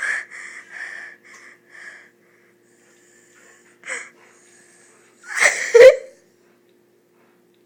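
Rottweiler in a prolonged sneezing fit. It starts with a rapid run of short sneezes, about three a second, over the first two seconds, then one more about four seconds in, and a last, loudest sneeze about five and a half seconds in.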